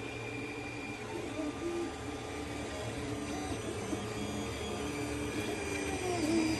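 FDM 3D printer printing: its stepper motors whine in short notes that keep changing pitch as the print head moves, over a steady fan hum.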